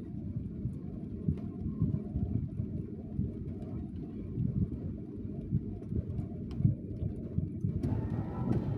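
Rain: a dense, low patter with many irregular louder knocks of single drops.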